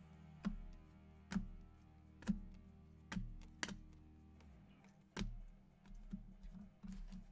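Stiff 2020 Mosaic football trading cards being flipped through by hand: a handful of sharp, irregularly spaced clicks and snaps as cards are slid off the stack, over quiet background music.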